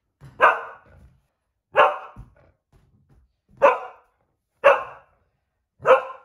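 Cocker spaniel barking at a balloon: five single, sharp barks at uneven gaps of one to two seconds.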